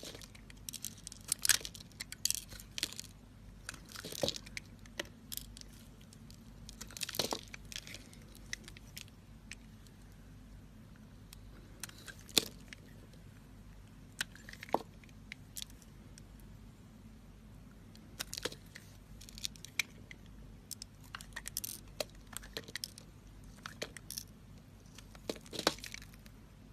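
Irregular small clicks, taps and short crackling scrapes, some in quick clusters, over a faint steady low hum.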